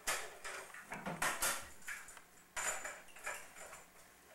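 A child's plastic toy cassette player being handled at its cassette door, giving a string of sharp plastic clacks and rattles.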